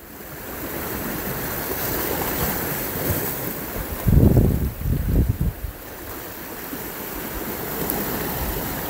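Sea waves washing against a rocky shoreline, with wind blowing across the microphone; a louder low rush comes about four seconds in.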